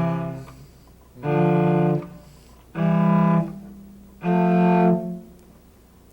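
Cello playing four separate bowed notes about a second and a half apart, each held under a second: a demonstration of a major scale in thirds.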